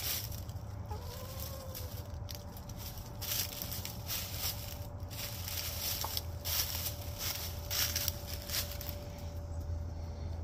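A hen scratching and rustling in dry fallen leaves and dirt, in irregular bursts of crackling. A short bird call comes about a second in, over a steady low hum.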